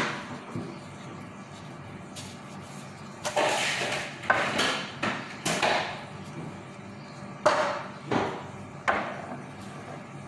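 Irregular sharp knocks and clatters of dishes and a utensil on a kitchen counter, about seven of them, several close together, each dying away quickly.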